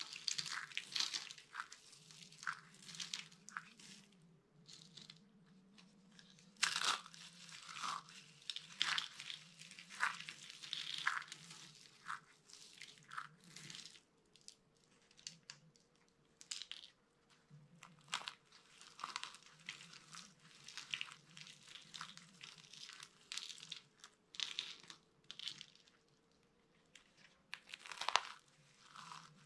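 Small dry soap baskets being crushed: irregular crunching and crackling, one crush after another with short pauses between.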